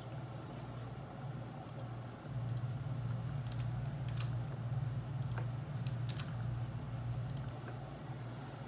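Scattered clicks of computer keyboard keys, a few at a time with pauses, over a steady low hum that grows louder about two seconds in.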